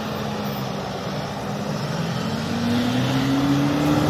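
Mitsubishi L200 pickup's engine pulling hard up a snowy slope, its pitch rising about three seconds in as the revs climb, over the rush of tyres spinning and throwing snow.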